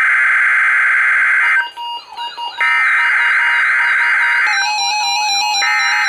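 Weather radio speaker sounding the digital SAME header that opens a NOAA Weather Radio Required Weekly Test: repeated bursts of data tone. The first burst ends about one and a half seconds in, the second runs from about two and a half to four and a half seconds, and the third begins near the end.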